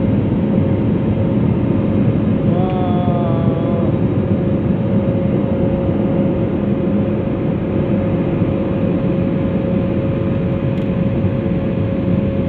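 Airliner's turbofan engines running at climb power after takeoff, heard inside the passenger cabin: a steady rushing noise with a constant hum through it.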